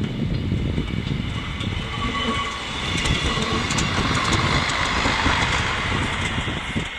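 Czech Railways class 814 Regionova two-car diesel railcar passing close by and pulling away: a steady low rumble with scattered wheel clicks and a high whine that is strongest in the middle and fades near the end.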